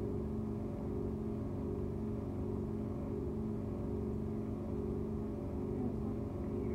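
A steady low hum with a few held tones, unchanging throughout.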